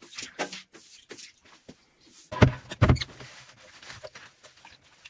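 Stiff-bristled hand brush sweeping water across a wet tiled floor in quick scraping strokes, then two heavy thumps about two and a half seconds in.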